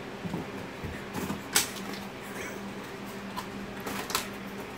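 Indoor handling sounds: a few soft knocks and clicks over a low, steady hum, the sharpest click about one and a half seconds in.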